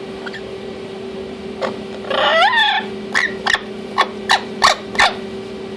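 Orange-winged Amazon parrot calling: one drawn-out call that bends up and down in pitch about two seconds in, then a quick run of six short, sharp sounds.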